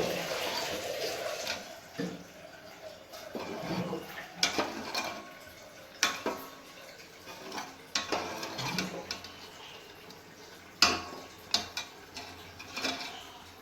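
Water pouring into a cooking pot, giving way after about a second and a half to a metal bowl knocking and clinking against the pot a dozen or so times, the sharpest knock near the end.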